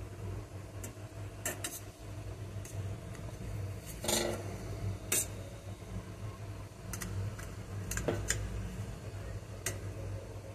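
A knife tapping on a perforated steel steamer plate as steamed moong dal mangodi are flipped over: scattered light metallic clicks, the loudest about four seconds in. A steady low hum runs underneath.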